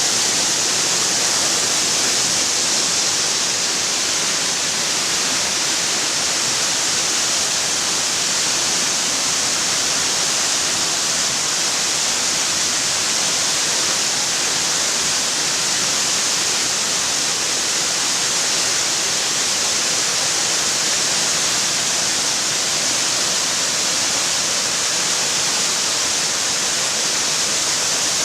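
Waterfall: water falling and splashing in a steady, loud hiss with no change throughout.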